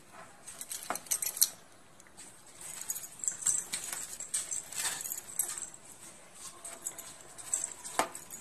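A spoon stirring and clinking against a steel pan of simmering coconut water while the agar-agar dissolves: irregular light clinks and scrapes over a high hiss, with a few sharper knocks on the pan, one about a second in and one near the end.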